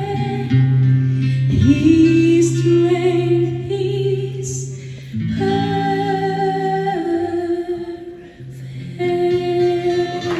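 Woman singing long held notes into a microphone, accompanied by an acoustic guitar.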